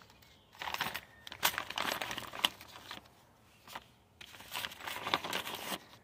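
Plastic parts bag crinkling as hands dig into it, in two spells, with a few sharp clicks from the small metal brake-hardware clips inside it.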